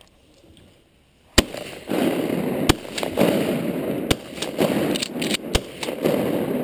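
A volley of shotgun blasts at flying ducks: one very loud shot about a second and a half in, then seven or eight more from the hunters over the next four seconds, with a loud rushing noise filling the gaps between the shots.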